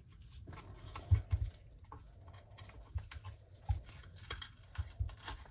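Irregular light knocks and clicks, a few a second at times, of handling as a tool is worked along the edge of a resin-coated board.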